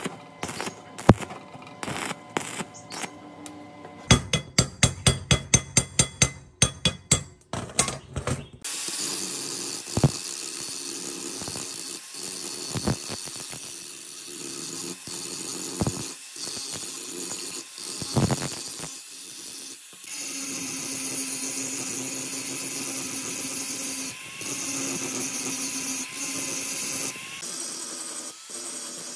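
Scattered sharp clicks, then a fast, even run of taps, about five a second, then a power tool running steadily, its sound shifting about twenty seconds in.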